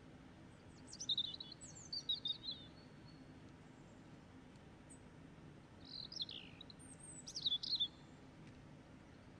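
A small bird chirping: two short runs of quick high chirps and whistles, about a second in and again around six seconds in, over a faint steady hum.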